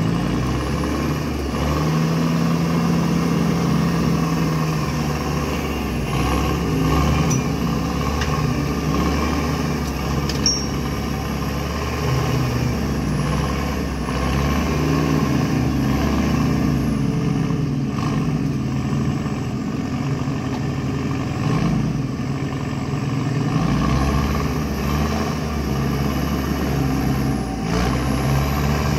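Off-road 4x4's engine running under load in mud, its revs rising and falling over the whole stretch.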